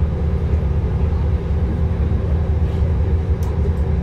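Passenger train running, a steady low rumble with a constant hum, as heard aboard the coach.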